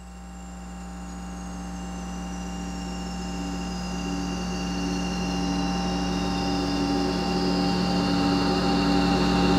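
Layered electronic drone of steady tones over a low hum, swelling steadily louder, with a high whistling tone gliding slowly downward in pitch.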